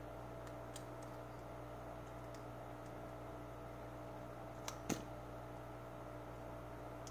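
A key used as a screwdriver on the hose clamps of a Fluval FX6 canister filter makes small metal clicks: a faint one near the start and a sharp double click just before five seconds in, the loudest sounds. A steady low hum runs underneath.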